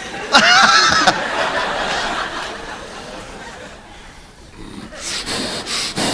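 Studio audience laughing: a loud burst of laughter about half a second in that fades over the next few seconds. Near the end come several short breathy bursts.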